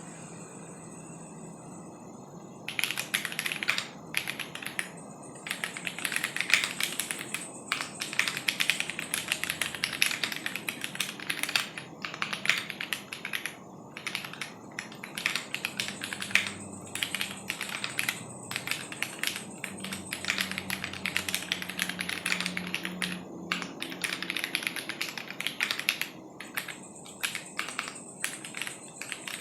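Ginkgo65 mechanical keyboard with stock Jwick T1 switches in a polycarbonate plate, no case foam and ABS Cherry-profile keycaps, being typed on fast and continuously. The typing starts about three seconds in, with short pauses here and there.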